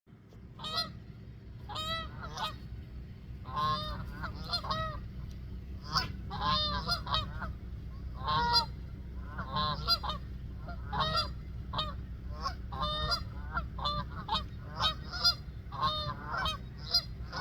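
Geese honking over and over, one or two calls a second and sometimes overlapping, over a steady low rumble.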